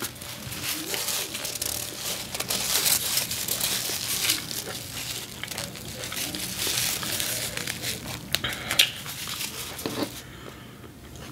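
Paper napkin crinkling and rustling as it is handled close to the microphone, stopping about ten seconds in.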